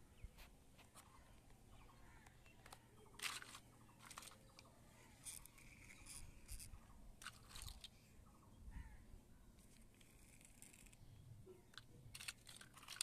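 Faint scattered clicks and rustles of small plastic toy vehicles being handled and set down on a cloth.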